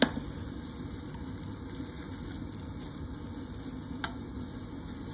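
Beaten egg sizzling steadily in an oiled frying pan while a tamagoyaki is rolled. There is a sharp click at the start and another about four seconds in.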